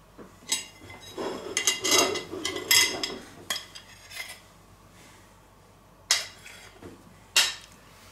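A metal cake server scraping and clinking on a ceramic plate as a slice of cake is slid onto it. A run of scrapes and clinks comes in the first few seconds, then two sharp clinks near the end.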